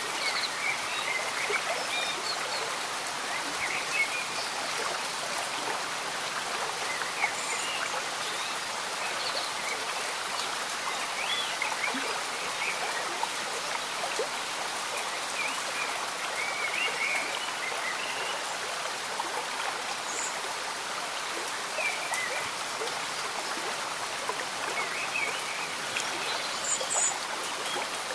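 Slow stream bubbling and gurgling steadily under light, continuous rain falling on foliage.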